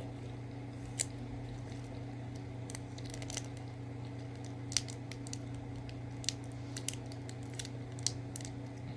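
Small sharp clicks and rustles from snack packaging being handled and a snack being eaten, spread out every second or two over a steady low hum.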